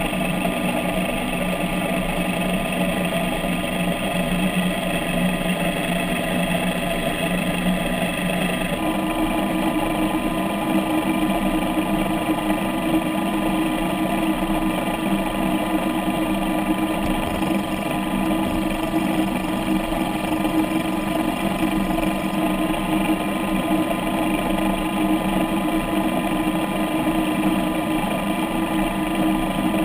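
REMUS 100 underwater vehicle's electric thruster motor running steadily, a constant mechanical hum of several tones heard through the camera housing. The mix of tones changes abruptly about nine seconds in.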